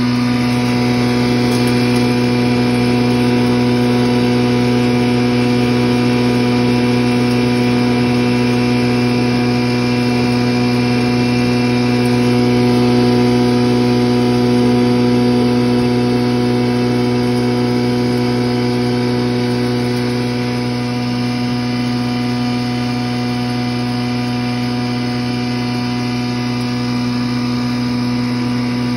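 Bhusa (dry straw) grinder machine running steadily with a deep, constant hum as dry straw is fed into its hopper, a little louder about halfway through.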